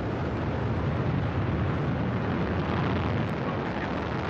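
Soyuz booster's first stage, four strap-on boosters and the core engine, firing at full thrust in ascent: a steady, deep rumble.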